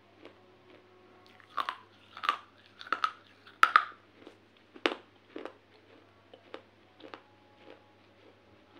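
Close-up crunching bites and chewing of pieces of baked clay pot. There is a run of loud, sharp crunches in the first half, loudest about three and a half seconds in, then it eases to quieter chewing clicks.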